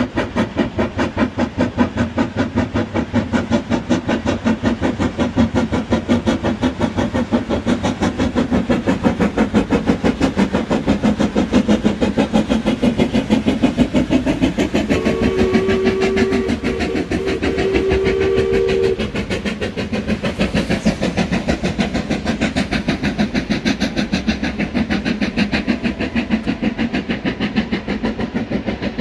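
Steam locomotive hauling a train, its exhaust beating in a steady, rapid rhythm, with a two-tone whistle sounding for about four seconds around the middle.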